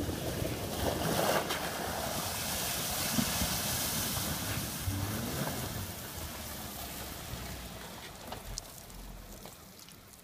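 Water splashing and rushing around a 2013 Jeep Wrangler as it drives through a shallow river and out onto the bank. The noise is loudest in the first half and fades over the last few seconds as the Jeep leaves the water.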